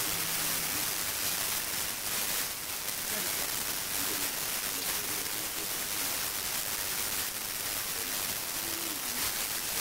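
Steady hiss of noise, with a few faint, brief voice-like sounds under it.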